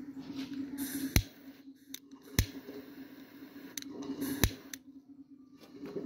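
Zippo lighter's hinged metal lid being flicked open and snapped shut in hand tricks: three sharp metallic clicks about a second, two and a half seconds and four and a half seconds in, with fainter clicks and handling sounds between, over a steady low hum.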